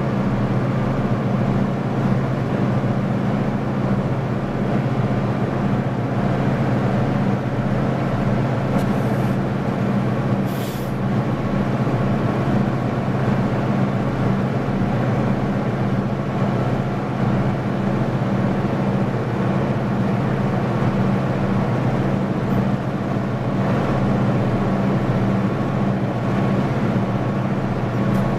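Four EMD GP11 diesel locomotives running at full throttle together, a loud steady low engine drone as they struggle to pull a stalled sand train up a snowy grade. A brief high hiss comes about ten seconds in.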